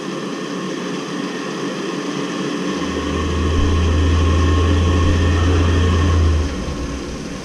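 Navien tankless water heater firing while hot water is drawn: a steady rush from its combustion fan and burner. A deep low hum joins about three seconds in and drops away about three and a half seconds later.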